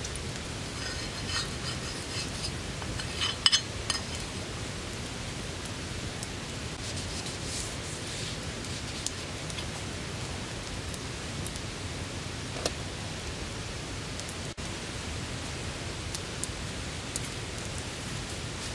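A steady, even hiss of outdoor background noise, with a few light clicks and clinks in the first four seconds and a single sharp click about two-thirds of the way in.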